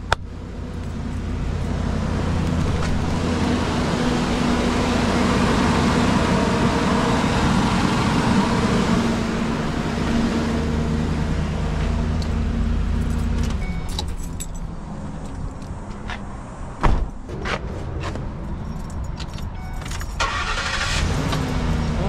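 A 2010 Ford E250 van's 4.6-litre V8 catches and runs, first at a fast idle, then settling lower about 14 seconds in. It runs now that the fuel pump relay has a working ground, temporarily taken to the battery's negative post. A single sharp knock comes about 17 seconds in.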